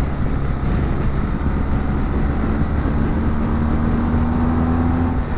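BMW GS motorcycle running at a steady road cruise, heard on board with wind and tyre noise. About three seconds in, the engine note climbs slightly for a couple of seconds.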